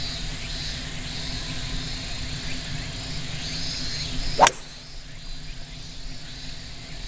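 A 3-wood striking a golf ball off the fairway: a single sharp crack of impact about four and a half seconds in.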